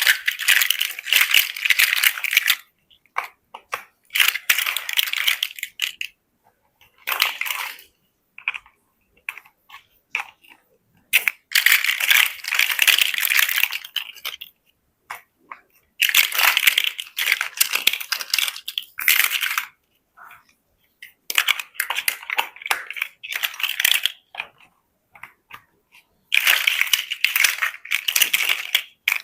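Loose plastic building bricks rattling and clicking as they are handled, in bursts of one to three seconds with short pauses between, about seven times.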